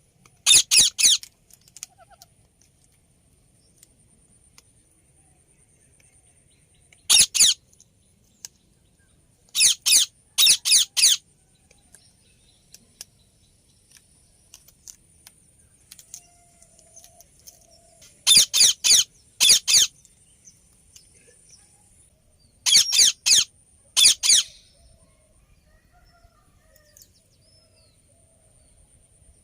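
Indian ringneck parakeet giving loud, shrill calls in five bouts spaced several seconds apart, each bout a quick run of one to four short calls.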